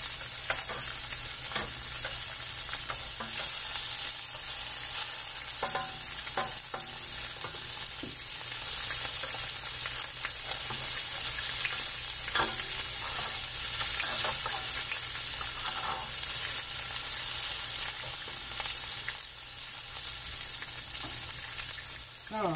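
Pork chops sizzling in oil in a frying pan, a steady hiss, with scattered clicks and scrapes of a knife and metal spatula against the pan as a chop is cut.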